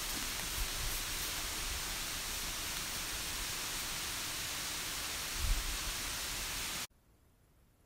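Steady broad hiss of outdoor noise, with a low bump about five and a half seconds in, cutting off abruptly to near silence about seven seconds in.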